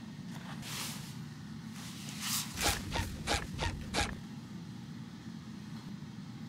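Soft footsteps and rustling of a person walking across a carpeted floor, a run of light taps between about two and four seconds in, over a steady low room hum.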